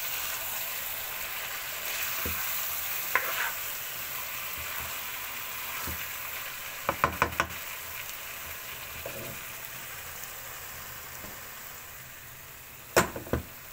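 Chicken, peppers and onions in egg white sizzling in a dark pan while a spatula stirs them; the sizzle slowly dies down. A few sharp knocks of the spatula on the pan come about three seconds in, in a quick cluster around seven seconds, and once loudly near the end.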